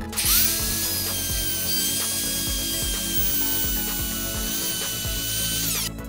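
Makita RP0900 plunge router spinning up to a steady high whine as it cuts into a pine board, then winding down just before the end.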